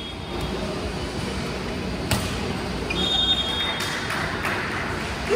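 A volleyball striking the hard court floor once, sharply, about two seconds in, followed by a few lighter knocks and a short high squeak over the steady background noise of a large hall.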